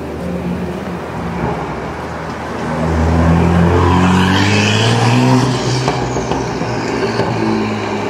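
A car drives past and away, its engine note rising in pitch and growing louder from about three seconds in, with tyre hiss peaking around five seconds, then fading.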